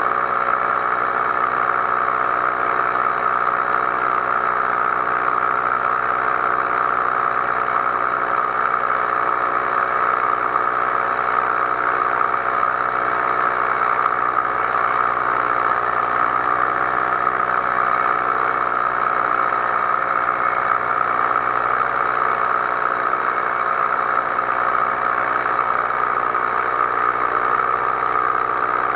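Powered paraglider's engine and propeller running steadily at cruise in flight, the engine note wavering slightly about halfway through.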